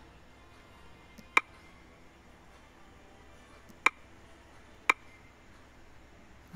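Three short, sharp taps on a smartphone's touchscreen while digits are typed on its on-screen number keyboard, spaced irregularly over a faint background hiss.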